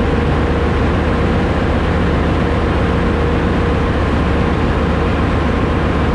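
Ship's engine-room machinery running steadily with the ballast pump on: a loud, deep hum with a faint steady tone above it.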